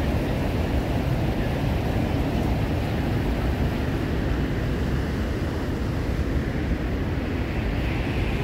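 Steady low rumble of fast water: the Niagara River rapids rushing to the brink of the Horseshoe Falls and the falls pouring over.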